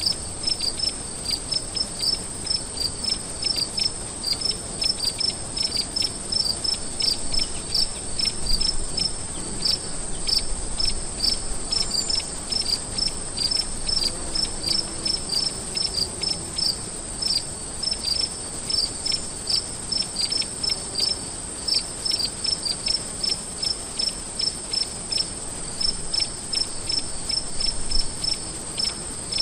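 Crickets chirping in short, evenly repeated pulses, about three a second, over a steady high-pitched continuous trill.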